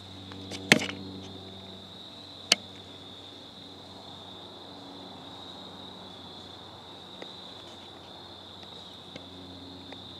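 Steady, high-pitched insect chorus. Two sharp clicks cut through it, a loud one just under a second in and a smaller one about two and a half seconds in.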